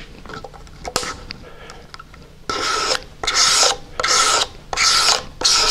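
A razor blade with its cutting edge ground off square and dressed on a diamond stone into a fine scraper is drawn back and forth across a small pale board. It makes short scratchy strokes, about five of them at a steady pace from about halfway in, taking off fine shavings rather than dust. The scrape is light, not nearly as aggressive as a coarse-ground scraper.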